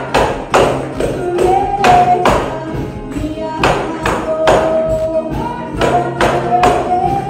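Live worship band playing a Spanish praise song: a woman singing held notes over acoustic guitar and drums, with sharp percussion strikes about twice a second.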